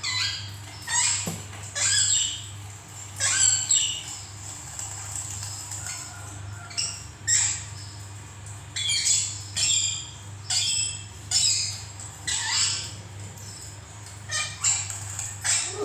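Bird calls, sharp and high, repeating about every one to two seconds with most sweeping down in pitch, over a steady low hum.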